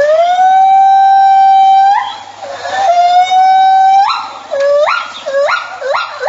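A small animal crying: two long, drawn-out wails that rise and then hold steady, the first about two seconds long, followed by three short rising cries.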